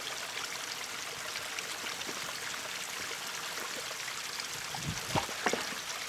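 Creek water running steadily over rocks, with a couple of brief low thumps near the end.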